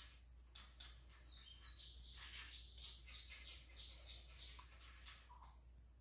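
A spoon scraping a beaten egg through a small plastic sieve over a pot. It makes faint, scratchy strokes about three a second that fade out near the end.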